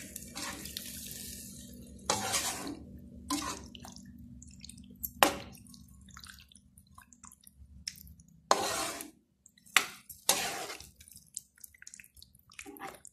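Spatula stirring chicken pieces through a watery masala gravy in a non-stick wok: wet scraping and sloshing strokes every second or two, with one sharp clink about five seconds in.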